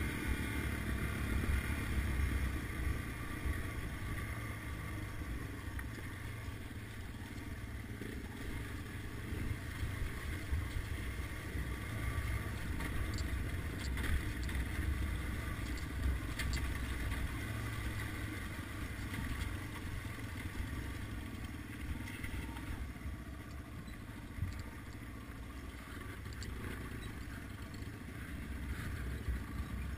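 Small single-cylinder four-stroke dual-sport motorcycle engine running steadily on a dirt road, heard from the camera's own bike, with a few faint clicks about halfway through.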